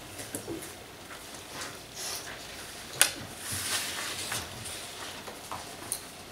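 Papers rustling and small knocks on a meeting table, with one sharp click about three seconds in.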